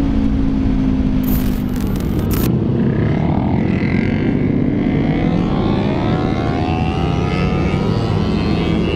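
Sport motorcycle engine running under way, with wind and road rumble close on the microphone. Its note climbs steadily through the second half as the bike accelerates.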